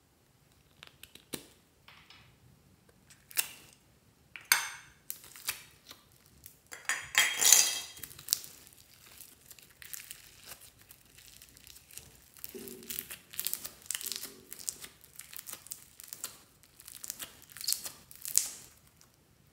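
Hands pulling apart and stretching sticky, glitter-flecked yellow slime taken from a pineapple-shaped squishy toy: irregular crinkling, crackling and sticky clicks. The busiest, loudest crackling comes about seven to eight seconds in.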